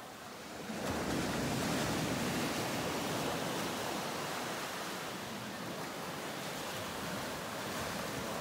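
Ocean surf washing onto a beach: an even rush of water that swells up about a second in and then holds steady.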